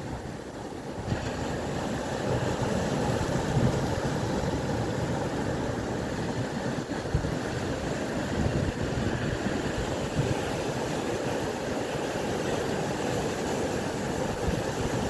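Steady rushing noise of sea waves and wind along the shore, growing louder and brighter about a second in.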